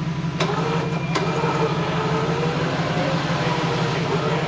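Vehicle engine running as a steady drone, with a fainter tone above it that wavers up and down. Two sharp clicks come about half a second and about a second in.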